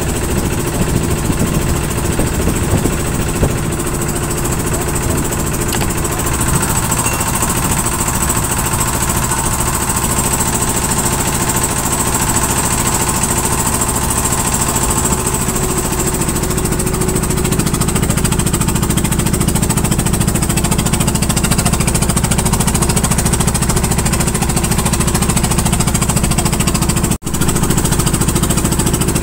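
Engine of a bagang lift-net fishing boat running steadily and loudly. Its low drone gets a little heavier just past halfway, and the sound drops out for an instant near the end.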